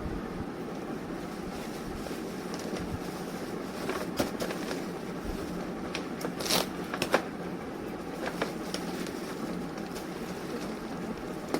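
Plastic toy packaging being handled: scattered clicks and crackles, a cluster of them a few seconds in, over a steady background hum.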